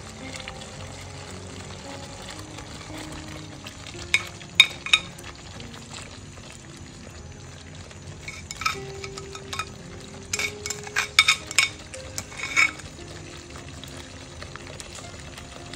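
Thick masala gravy sizzling steadily in a pan, with sharp clinks of utensils against the pan: a few about four to five seconds in, then a longer run from about eight to thirteen seconds in as the fried cauliflower and cashew paste are added.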